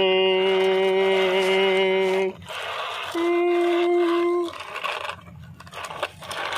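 A person's voice humming two long, steady notes, the second one higher. Quieter scraping and rustling follows near the end.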